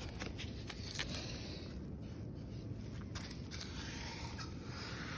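Faint footsteps on damp beach sand, a few soft scattered scuffs, over a steady low outdoor rumble.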